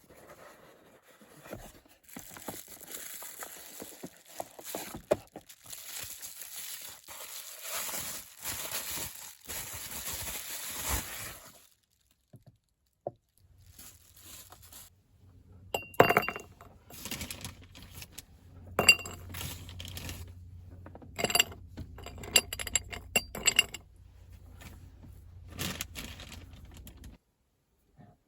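Cooking utensils and dishes handled: about ten seconds of hissy rustling with small clicks, then after a short pause a run of sharp clinks and knocks over a low hum.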